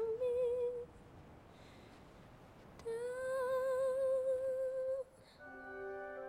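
A female voice sings two long wordless notes with vibrato, the second from about three to five seconds in, with a quieter pause between them. A sustained orchestral chord comes in near the end.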